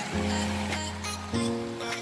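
Background music with sustained chords that change about every second, over a light ticking beat.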